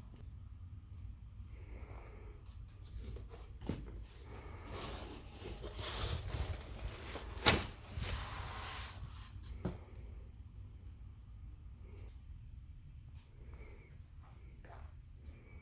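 A large cardboard box with a radiator inside being unpacked, its packaging handled. Scattered knocks give way to several seconds of loud rustling and scraping in the middle, with one sharp snap at their height and a knock just after.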